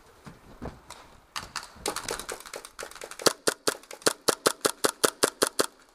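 Gas blowback airsoft guns firing. Scattered fainter shots come first, then about three seconds in a close gun fires a fast, even string of sharp shots, about five a second, typical of rapid semi-automatic trigger pulls.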